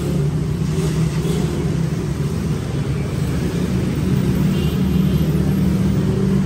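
A steady, loud, low engine-like hum with a droning pitch, under faint rustling of a clear plastic sheet being unfolded and handled.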